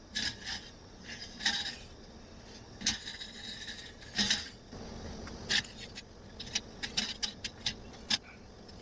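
Scattered short scrapes and clinks of metal cooking utensils during roti-making, with a run of quicker sharp ticks in the second half.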